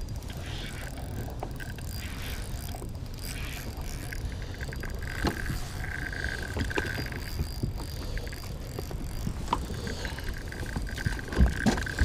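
Spinning reel clicking and whirring in short spells while a hooked lake trout is fought on light tackle, over a steady low rumble.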